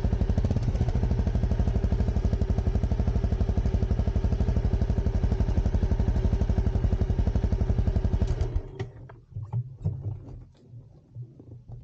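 Honda CRF250 Rally's single-cylinder four-stroke engine idling with an even, rapid pulse. About eight and a half seconds in, the engine sound drops away, leaving scattered light clicks and rustles.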